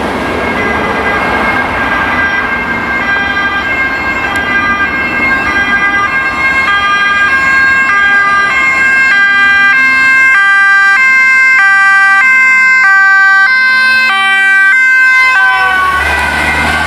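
Dutch fire brigade Volkswagen van's two-tone siren switching between two pitches a little over twice a second, growing louder as the van approaches. The pitch drops as it passes close by near the end.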